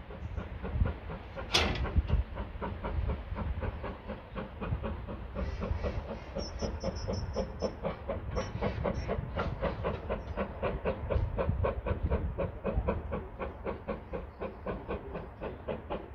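Baldwin S160 two-cylinder 2-8-0 steam locomotive working hard up a gradient, its exhaust beating in a steady rhythm of about four chuffs a second, under a low rumble. A single sharp crack comes about a second and a half in.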